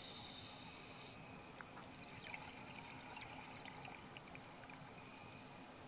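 Faint underwater sound picked up by a dive camera at depth: a soft steady hiss with scattered small ticks and crackles from about a second and a half in to near the end.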